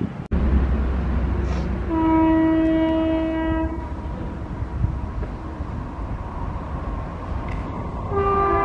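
Indian Railways WAP-4 electric locomotive sounding its horn: one long steady blast about two seconds in, and another starting just before the end, over the low rumble of the approaching train.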